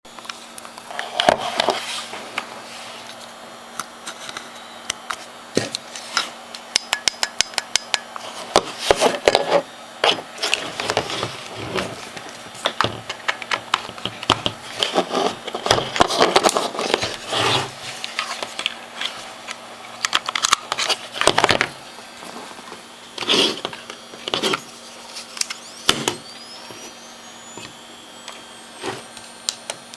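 Handling of a DSLR camera and a plastic Cactus wireless flash trigger on a desk: scattered clicks, knocks and rubbing, with a quick run of even clicks early on and louder knocks in bunches. Near the end a faint high whine rises steadily in pitch: a flash recharging.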